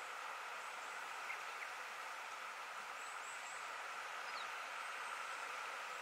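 Steady rush of stream water, with a few faint, short, high chirps now and then.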